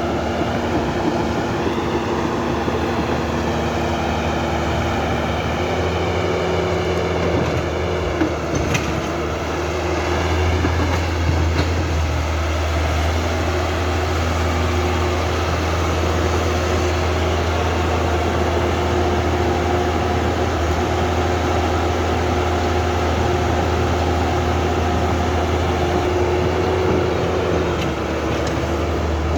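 Small electric motors and gearboxes of a remote-control toy excavator and bulldozer whirring steadily. The pitch glides up and down now and then as the machines move.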